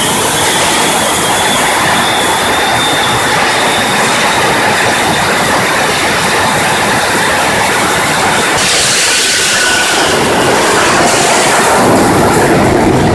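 The Shockwave jet truck's three jet engines running with afterburners lit: a loud, dense roar with a thin high whine over it. About nine seconds in, the whine stops and the roar changes as the truck launches down the drag strip.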